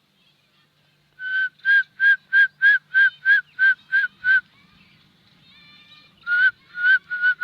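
A bird calling one short whistled note over and over, about three times a second, in two runs with a brief pause between them.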